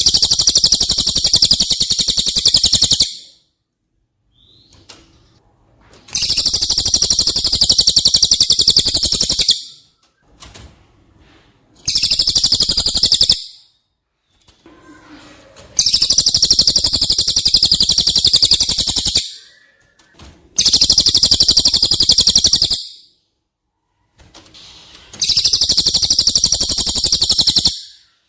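Cililin songbird singing in bouts of very fast, high rattling trills. Each bout lasts about two to three seconds, and there are six of them with short pauses between. This is the kind of trill used as a "masteran" training song for pet magpie-robins.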